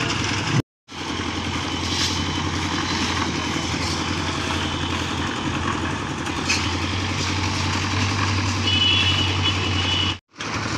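Diesel engines of backhoe loaders running steadily with a constant low hum, with a brief high steady tone a little before the end. The sound breaks off for a moment twice, near the start and near the end.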